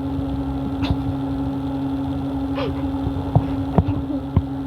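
A steady low hum, with a few light clicks and taps in the second half.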